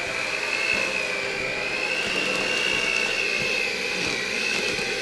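Electric hand mixer running steadily, its beaters churning stiff sugar cookie dough in a stainless steel bowl; a high motor whine that wavers slightly in pitch.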